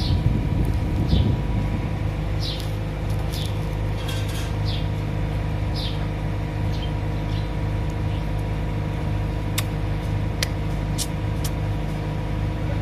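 An engine running steadily at idle, a constant hum. Short high chirps come through the first half, and a few sharp clicks near the end.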